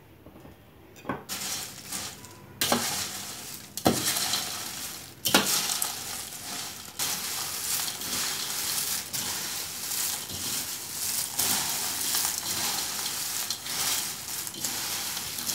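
Dry fried corn flakes crackling and rustling as they are tossed and mixed by hand in a steel bowl. It starts about a second in with heavy scoops every second or so, then settles into a continuous crackle.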